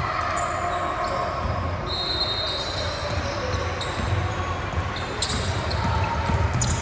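Basketball game in a gym: a ball bouncing on the court, with voices of players and spectators going on throughout, all echoing in the hall. A few short high squeaks come about a second and two seconds in, typical of sneakers on the floor.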